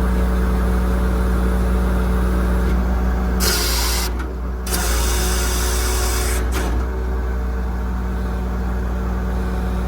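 5.9 Cummins diesel engine running steadily, with two short bursts of loud hiss, one about three and a half seconds in and one just under five seconds in, and a click about a second and a half later.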